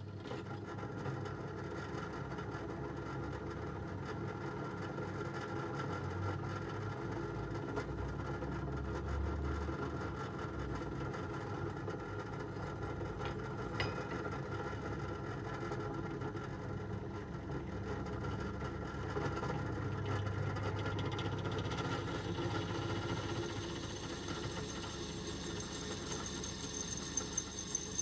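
Drill press motor running steadily while a freshly sharpened twist drill bit bores into a steel plate. A higher-pitched cutting whine comes in over the last several seconds.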